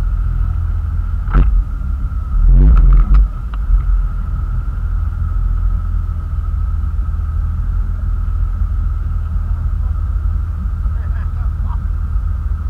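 Tow boat's engine running steadily at speed, a low rumble with a steady whine over it, mixed with wind and water noise. A few loud thumps come about a second and a half in and again around three seconds in.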